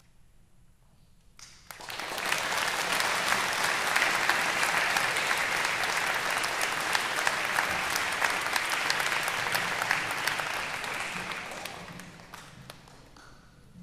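Audience applauding a choir's finished piece: clapping breaks out about a second and a half in, holds steady, and dies away near the end.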